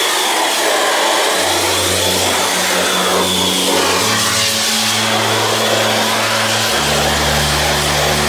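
Pressure washer spraying a steady jet of water against a car's door and door jamb, a loud, even hiss of spray.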